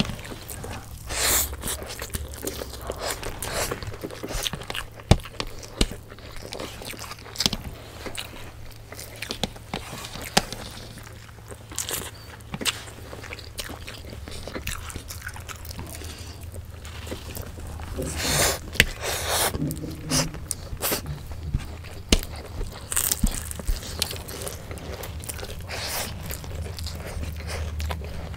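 Close-miked eating sounds: two people chewing and biting hand-fed mouthfuls of pancit bihon rice noodles and crispy lumpia, with many sharp crunches and mouth smacks scattered through and a denser spell of chewing about two-thirds of the way in.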